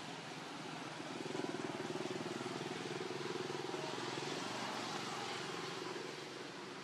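A steady, distant engine drone that grows louder about a second in and fades back after about five seconds, over outdoor background noise.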